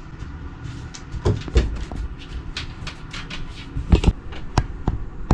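An irregular series of clicks and knocks, like objects being handled, with louder knocks about a second in and again about four seconds in, over a steady low rumble.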